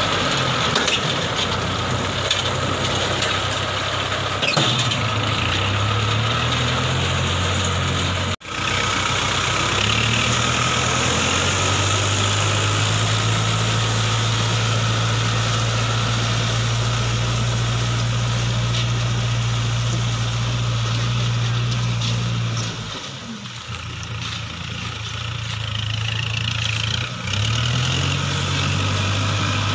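Engine powering a round straw baler, running steadily at a constant speed. Its pitch rises briefly about five seconds in and again near the end. It cuts out for an instant about eight seconds in and goes quieter for a few seconds shortly before the end.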